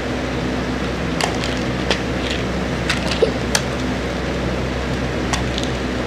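A handful of short, sharp clicks and taps at irregular moments from a plastic pill bottle and its cap being handled while pills are taken out, over a steady background hum.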